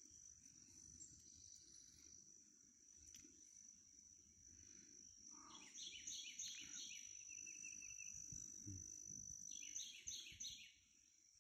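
Faint outdoor ambience: a bird sings two short phrases of quick repeated notes, about six and ten seconds in, over a steady high-pitched whine and a low rumble.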